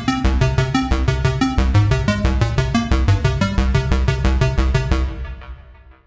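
Cherry Audio Elka-X software synthesizer, an emulation of the ELKA Synthex, playing its 'SQ AR' arpeggio preset: a fast, even run of bright repeated notes over a low bass line, dying away near the end.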